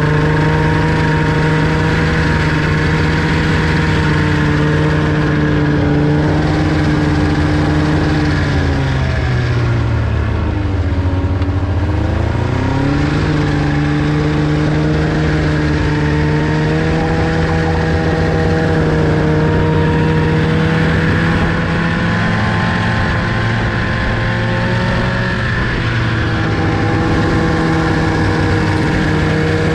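Older Arctic Cat ZR 600 snowmobile's two-stroke engine running at a steady cruise while towing an enclosed passenger sled. About ten seconds in the engine eases off, then picks back up to its earlier speed.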